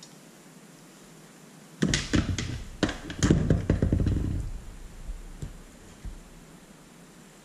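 Hands rubbing olive oil over a large raw fish head on a plastic cutting board: wet slapping, squishing and knocking for about two and a half seconds, then a couple of single knocks as the head is handled.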